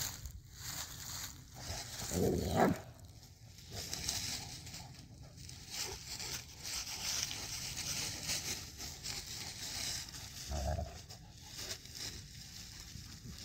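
Dogs playing in dry fallen leaves: a continuous rustling and crunching of leaves under their paws and bodies, with a short low dog vocalisation about two seconds in and another near the end.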